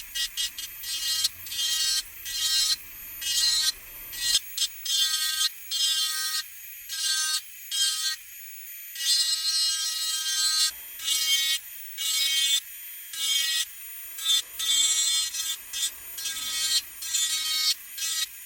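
Sanding on the polymer grip of a VFC Glock 45 Gen5 airsoft pistol: short rasping strokes, about one or two a second, with brief pauses between them.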